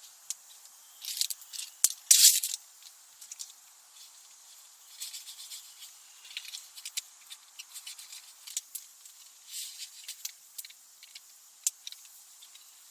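Irregular rustles, scrapes and small clicks from handling camp cookware while preparing oatmeal, with the loudest burst about two seconds in.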